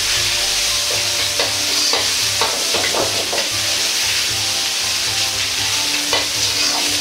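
Fried rice sizzling in a Chinese wok over high heat. A metal ladle scrapes and knocks against the wok at irregular moments as the rice is stirred and turned.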